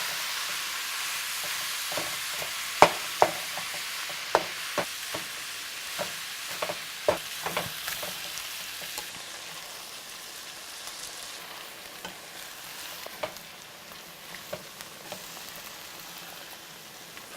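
Ground beef sizzling as it browns in a frying pan, with a utensil clacking and scraping against the pan as it is stirred. The sizzle slowly dies down, and the clacks come mostly in the first half.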